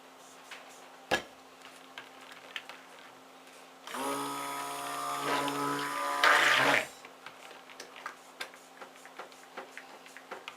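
Stick blender running in one burst of about three seconds in soap batter, a steady motor hum that gets louder and noisier just before it stops. A sharp knock comes about a second in, with light clicks and taps around it.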